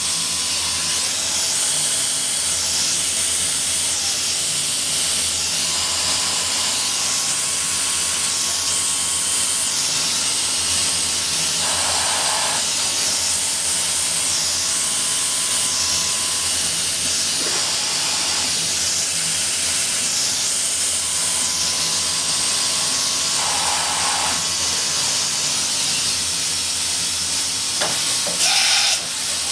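Akira Seiki SR3 CNC vertical mill running a spot-drill, drill and mill-bore program: a loud, steady hiss with faint steady tones. A soft pulse high in the hiss comes about once a second, with brief changes as the tool moves from hole to hole.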